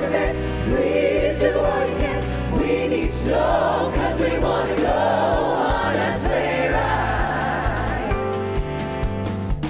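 Choir singing with band accompaniment, held notes with vibrato over a steady bass line; the voices drop out about eight seconds in, leaving the instruments playing.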